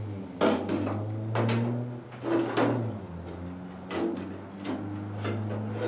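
Sheet-metal patch panel and an aluminium straight edge being handled and set against a truck bedside: several light metallic knocks and clanks, over a steady low hum.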